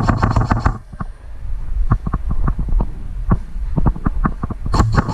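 Airsoft guns firing in an indoor arena: a rapid full-auto burst in the first second and another near the end, with scattered single sharp cracks of shots and BB hits in between.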